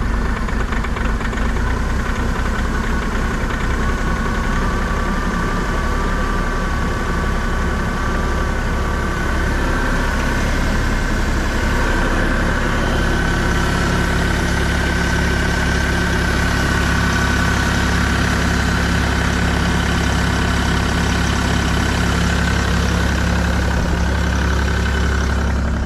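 Bobcat compact excavator's diesel engine running just after a hard cold start, uneven at first and settling into a steady idle about ten seconds in.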